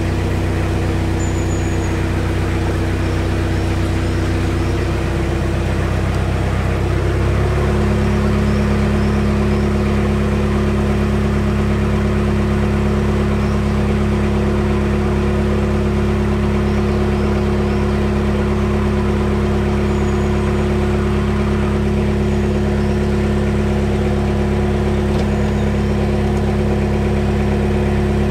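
Narrowboat's diesel engine running steadily at low revs while cruising slowly; the revs rise slightly about seven seconds in and then hold.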